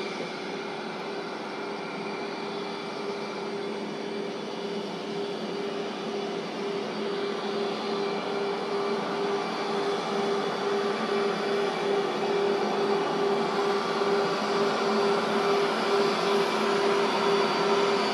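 Small twin-turbofan business jet taxiing, its engines giving a steady whine over a hiss that grows gradually louder as it approaches.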